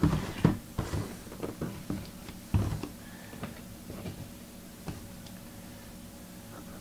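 Light knocks and taps of objects being handled on a desk, the loudest about two and a half seconds in, thinning out after about five seconds to a faint steady room hum.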